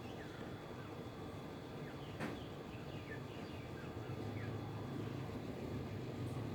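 Faint short bird chirps in a garden over a steady low rumble that grows a little louder in the second half, with a single click about two seconds in.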